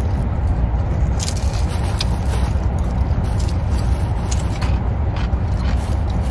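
Steady low rumble inside a parked car with the engine idling, likely running the air conditioning, with a few faint crisp crunches from chewing a fried spring-roll-wrapped cheese snack.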